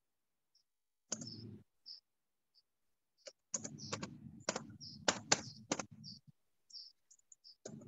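Typing on a computer keyboard: a short burst of keystrokes about a second in, then a longer run of quick key clicks.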